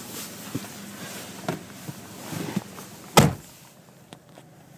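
A car door being shut with a single loud thud about three seconds in, after a few softer knocks and rustles of someone climbing into the seat. The idling engine is heard faintly underneath and is more muffled once the door is closed.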